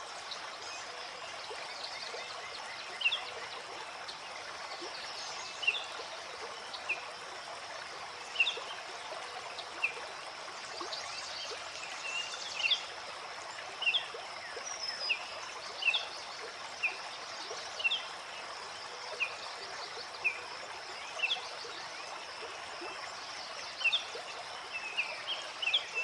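Flowing river water, a steady rushing hiss, with short sharp bird chirps repeating about once a second over it.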